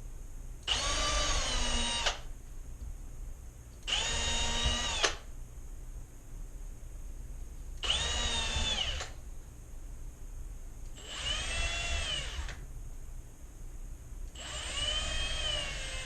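Power drill boring pilot holes into the wooden pieces of a nuc box, five short runs a few seconds apart, its motor pitch dipping under load in each run. The holes go only through the first board, to keep the wood from splitting when it is nailed.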